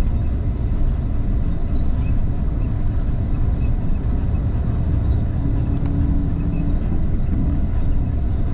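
Coach engine and running noise heard from inside the passenger cabin as the bus rolls slowly: a steady low rumble.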